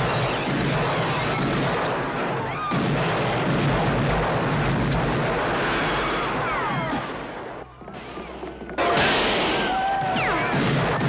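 Film soundtrack of a western gunfight: continuous heavy gunfire with music underneath. About eight seconds in it drops away for a second, then comes back loud.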